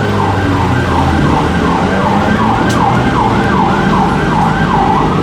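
Emergency vehicle siren on yelp, sweeping rapidly up and down in pitch about twice a second, over the low rumble of street traffic.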